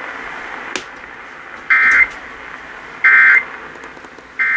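Emergency Alert System end-of-message signal over a radio broadcast: three short, loud bursts of screechy digital data tones about 1.3 seconds apart, marking the end of the alert. Radio hiss and a single click come before the first burst.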